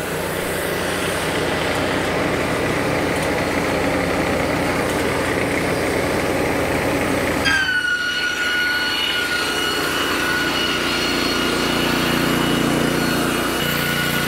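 Wood-Mizer EG100 board edger running, its Kohler gas engine humming steadily as it drives the twin saw blades and feed conveyor. About halfway through, the sound changes and a steady high whine sets in as a board is fed onto the conveyor.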